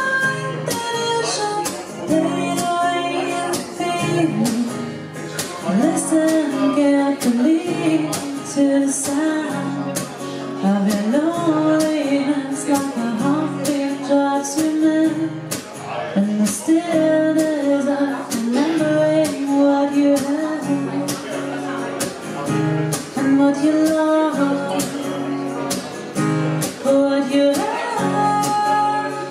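A woman singing a melody, accompanied by a steadily strummed acoustic guitar.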